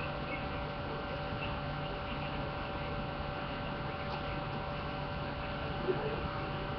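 Steady electrical hum with several constant tones over a faint hiss.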